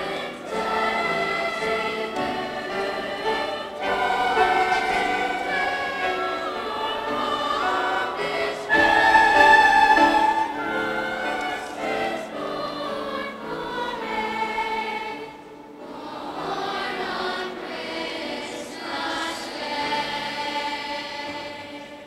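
Children's choir singing together, swelling to its loudest about nine seconds in, the final phrase dying away near the end.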